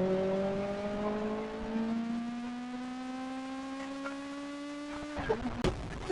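Kawasaki ZX-25R's inline-four engine pulling under steady acceleration, its high-pitched note rising slowly for about five seconds, then breaking off with a few clicks near the end.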